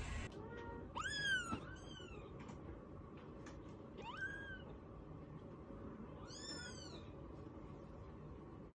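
A cat meowing: a few short, high meows that rise and fall in pitch, spaced a couple of seconds apart.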